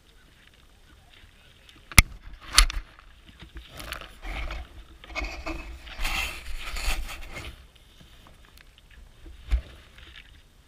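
Sheep muzzles knocking against a ground-level grain camera and rubbing and scraping over it as the sheep feed at it. There is a sharp knock about two seconds in and another just after, a few seconds of rough close scraping in the middle, and one more knock near the end.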